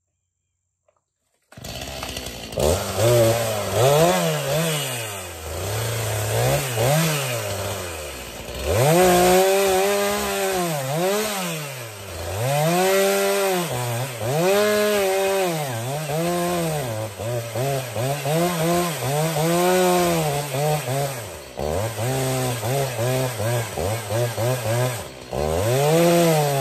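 Two-stroke chainsaw coming in about a second and a half in, then cutting into the trunk of a dead pine. The engine pitch rises and falls over and over as the saw revs up and bogs down in the cut.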